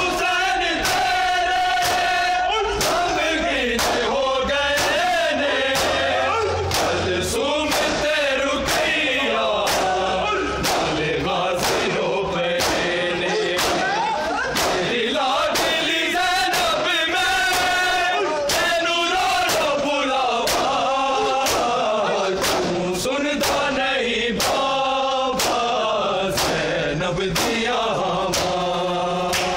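Men's voices chanting a noha (mourning lament) together, over a steady rhythm of palms striking bare chests in matam.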